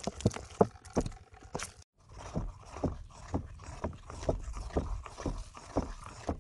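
A metal spoon stirring thick, wet flour batter in a stainless steel bowl, scraping against the bowl in repeated strokes, about two to three a second. The strokes break off for a moment about two seconds in, then carry on.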